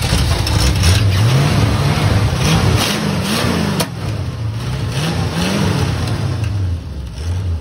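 A Ford Torino's engine being revved up and down several times by blipping the throttle, settling back toward idle near the end. It has just been got running again after dirt was blown out of the gas line, and the owner calls its carburetor a little clunky.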